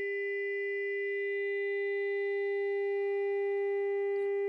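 Steady 400 Hz test tone from a small amplified speaker fed by a transistor push-pull amplifier stage, with overtones above it. The supply voltage has been lowered to bring in crossover distortion, which gives the tone a slight raspiness. A faint click comes near the end.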